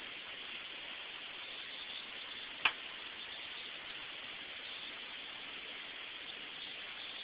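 Steady background hiss, with a single sharp click about two and a half seconds in.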